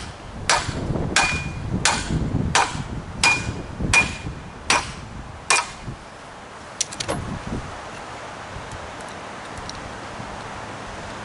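Hammer blows knocking cast aluminum off a DeWalt air compressor, about eight strikes in a steady rhythm, some with a short metallic ring. The blows stop about halfway through, followed by a few light clicks and a faint steady hiss.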